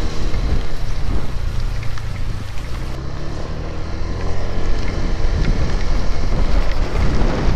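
Strong wind rushing over the microphone while a motorcycle engine runs underneath, with a steady low rumble and faint engine hum that is plainer in the first couple of seconds.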